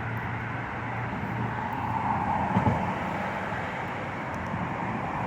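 Steady low hum of a vehicle engine running, with a faint brief knock about two and a half seconds in.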